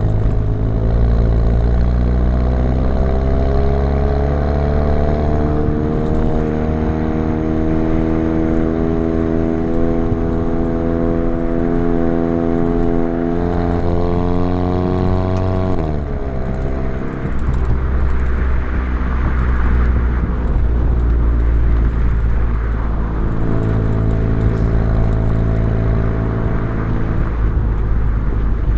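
Exhaust of a Volkswagen Mk7 GTI's turbocharged 2.0-litre four-cylinder, fitted with an ATP downpipe, under acceleration. The engine pulls steadily up through the revs for about fifteen seconds, the revs drop sharply, and it then runs on at lower, fairly steady revs.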